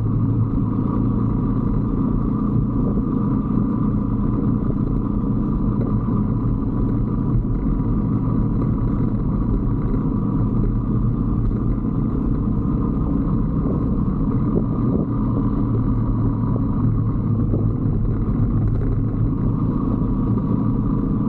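125cc Brixton motorcycle's single-cylinder engine running at a steady cruise, with road and wind noise.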